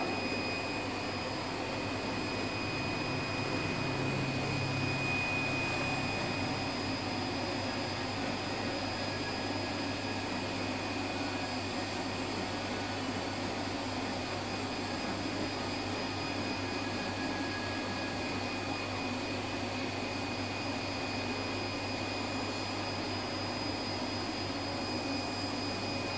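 EDO 1872A board-cutting machine running steadily: a constant motor hum with a thin high whine on top.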